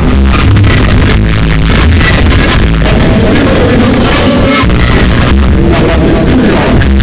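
Loud dance music played over a party sound system, with a steady heavy bass beat.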